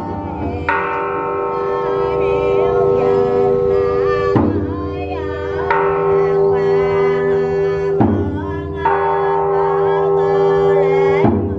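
Large temple bell struck five times at uneven intervals, with a drum beating on each stroke, the bell's hum ringing on steadily between strikes.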